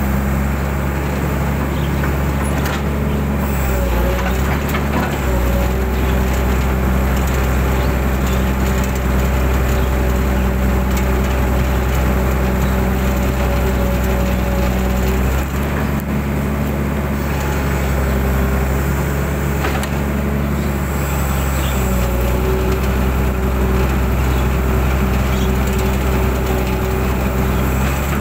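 Mitsubishi 120 hydraulic excavator's diesel engine running steadily under working load, its note shifting a few times as the hydraulics are worked, with a few faint knocks.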